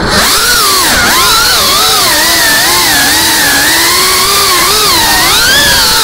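Brushless motors and propellers of a GEPRC Cinelog 35 FPV cinewhoop drone whining in flight, their pitch rising and falling constantly with the throttle, with a sharp dip about a second in. The sound is loud and close, picked up by the camera mounted on the drone.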